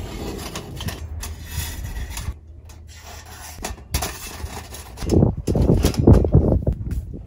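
Thin stainless-steel panels and wire grate of a folding fire-starter box clinking and rattling as it is unfolded and fitted together by hand, with louder clattering near the end.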